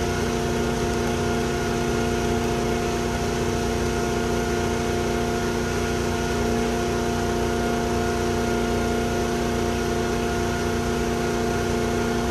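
A small engine or motor running steadily at constant speed: an unchanging hum with several fixed tones.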